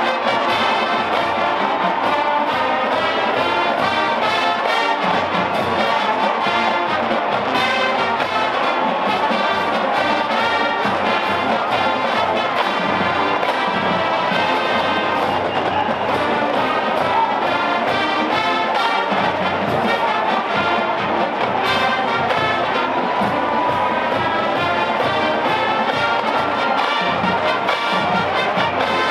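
College marching band playing at full volume: trumpets and trombones carry sustained chords over a drumline beat, without pause.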